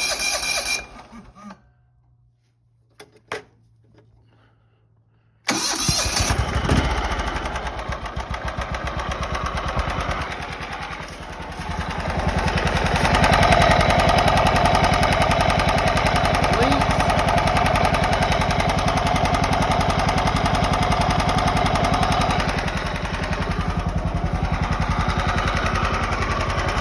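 John Deere 240 lawn tractor engine running, then stopping about a second in; after a few seconds of quiet with a couple of clicks it starts again abruptly and runs, louder and faster for about ten seconds in the middle before settling back. It is run just after an oil and filter change to fill the new oil filter.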